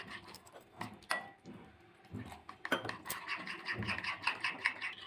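Metal spoon stirring a thick flour batter in a ribbed glass bowl: quick, repeated clinks and scrapes of the spoon against the glass, with a short pause about a second and a half in.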